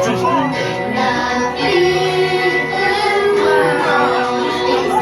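Song with children singing over an orchestral backing, the ride's soundtrack music.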